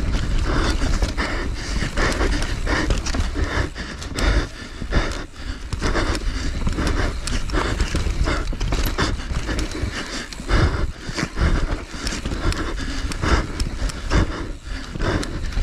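An enduro rider breathing hard and fast, breath after breath in a steady rhythm, close to the microphone, over a constant low rumble.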